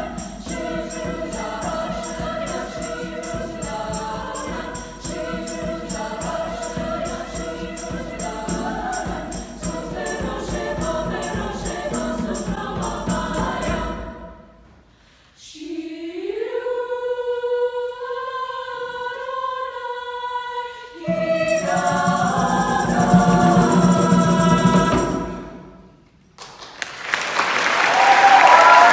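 Women's choir singing a choral piece. About halfway through, the singing drops out briefly, then a single sustained line rises in pitch and holds before the fuller choir sound comes back in. It swells to its loudest near the end.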